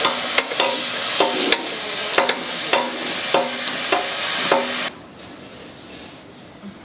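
Electric arc welding on a steel loader bucket: a steady frying crackle with sharp pops and a recurring hum, which stops abruptly about five seconds in.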